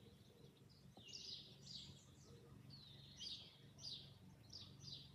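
Faint chirping of small songbirds: a string of short, high notes about once or twice a second, over a faint steady low background hum.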